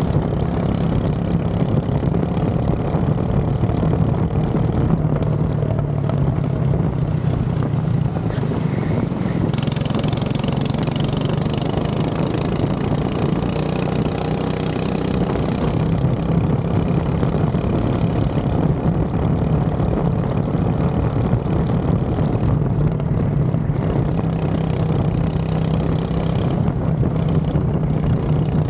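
Go-kart engine running steadily, its revs rising and falling a little over a continuous low drone. A high hiss comes and goes over it.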